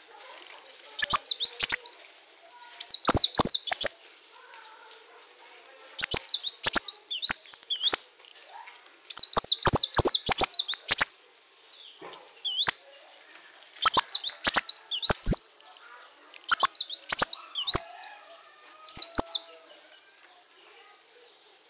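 Sunbird singing in repeated bursts of rapid, high, twittering chirps, each burst one to two seconds long with short pauses between them, and sharp clicks among the phrases.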